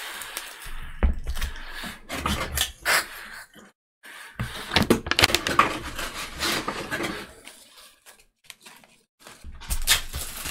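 Plastic-wrapped sheets of laser-cut wooden parts and a bundle of wooden strips being lifted out of a cardboard box and set down. Irregular rustling of plastic wrap and knocks of wood against cardboard, broken by two brief pauses.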